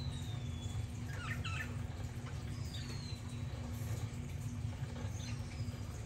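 Budgerigars calling softly: a few thin, falling high whistles and a short chattering chirp a little after a second in, over a steady low hum.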